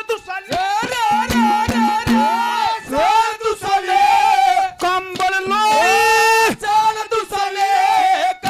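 Haryanvi ragni folk music: a melodic lead of bending, ornamented notes and held tones over frequent drum strokes.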